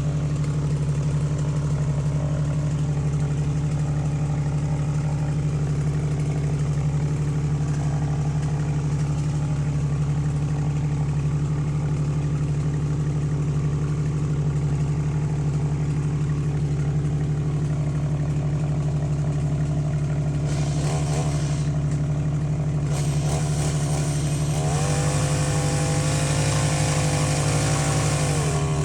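Jeep engine idling steadily. From about 20 seconds in, a power saw's motor revs up with a hiss, rising and falling in pitch as the cut on the branch is made.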